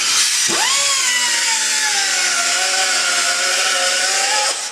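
Power tool cutting through the old welded exhaust pipe: a loud whine that dips as the blade bites about half a second in, sags slowly under load, then stops abruptly near the end.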